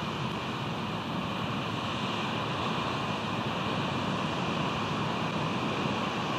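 Steady wash of ocean surf below the nest, with wind on the microphone; no eagle calls.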